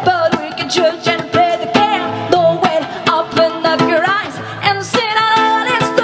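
Live band music: a singer holding long, wavering notes without words over strummed acoustic guitar.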